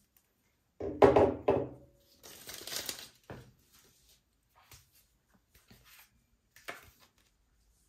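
Hands handling unboxing materials: a knock about a second in as the plastic power adapter brick is set down on the desk, then paper wrapping rustling, with a few light taps and clicks after.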